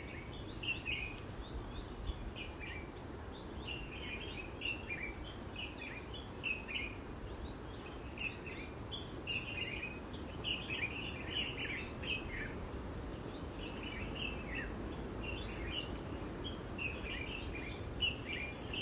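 A steady high-pitched insect drone, with birds chirping in quick clusters of short falling notes.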